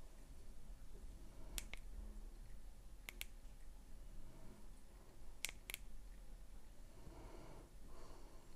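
Three pairs of short, sharp little clicks, spaced a second or two apart, against quiet room tone.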